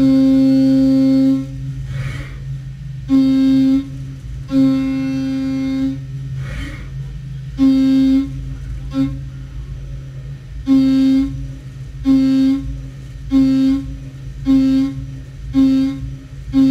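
Haas UMC 750 mill's end mill cutting on a Waveform roughing path. A steady spindle hum runs underneath a loud ringing tone at one unchanging pitch. The tone comes and goes about ten times in short stretches as the tool moves in and out of the cut.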